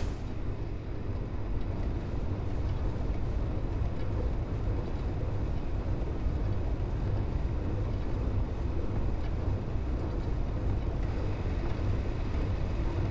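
Steady low mechanical rumble of a machine-hall ambience, even throughout with no distinct events.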